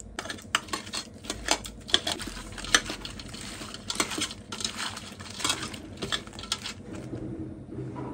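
Raw prawns being tossed and rubbed by hand in a stainless steel bowl to coat them with salt and turmeric: irregular clicks and taps of shells and hand against the metal bowl, thinning out near the end.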